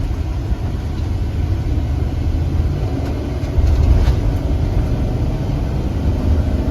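Steady low rumble of a vehicle driving, engine and road noise heard from inside the cab.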